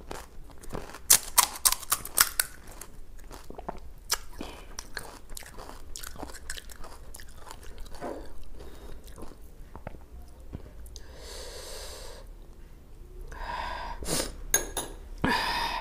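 Crisp, hollow pani puri shells crunching close to the microphone: a run of sharp, loud cracks about a second in, then quieter chewing and small crackles, with a few louder crunchy sounds near the end.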